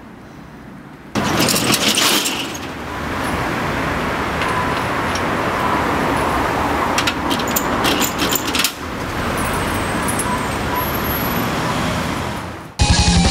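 City street traffic noise, the steady sound of passing cars, cutting in abruptly about a second in after a quieter start, with a few sharp clicks mixed in. It stops just before the end, where drum-driven rock music begins.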